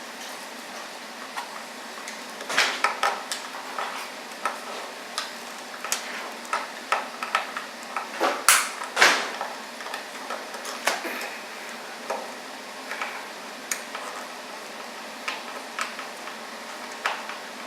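Scattered small clicks and knocks of things being handled, with two louder swishing rustles about eight and nine seconds in.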